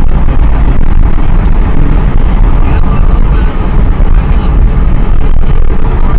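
Loud, steady low rumble of a moving vehicle, with wind buffeting the camcorder's microphone.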